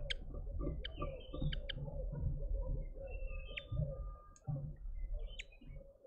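Small songbirds at a seed feeder chirping and twittering in short, rapid calls, many overlapping, with a low rumble underneath.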